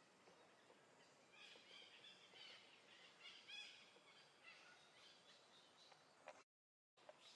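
Faint, high-pitched chirping animal calls over quiet outdoor background, bunched together between about a second and four seconds in.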